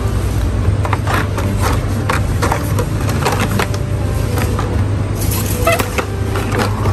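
Plastic blister-pack toy car cards clicking and crinkling as they are handled and slid on metal display pegs, a string of short sharp clicks. A steady low hum runs underneath.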